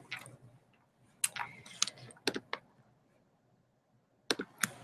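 Sharp clicks of a laptop's keys and trackpad: a quick cluster of about five clicks from about a second in, then two more near the end.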